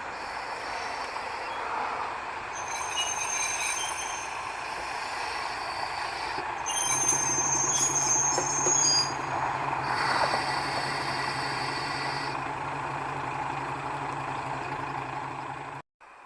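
Former Chihoku Kogen Railway diesel railcar running on the rails, with high wheel squeal coming and going three times and a steady engine hum from about seven seconds in. The sound cuts off suddenly near the end.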